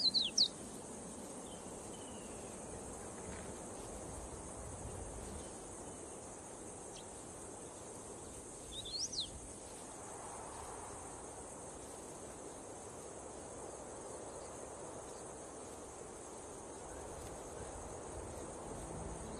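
Steady high-pitched drone of insects in dry bush. Short, sharp whistled bird calls cut through it right at the start and again about nine seconds in.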